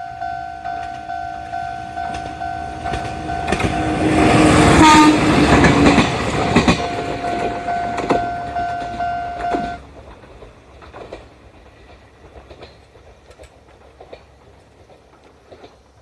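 Japanese level-crossing warning signal ringing its older standard electronic tone, a steady repeating two-tone ding, while a Jōmō Electric Railway train runs over the crossing, the train loudest about five seconds in. The signal stops about ten seconds in, leaving faint clicks.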